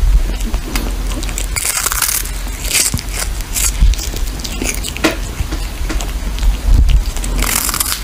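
Kitten crunching and chewing on a dried fish: irregular crackly bites close to the microphone, with a few louder crunches.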